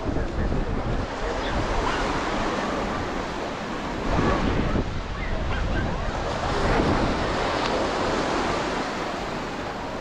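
Ocean surf washing onto the beach as a continuous hiss, swelling louder about four seconds in and again near seven seconds, with wind rumbling on the microphone.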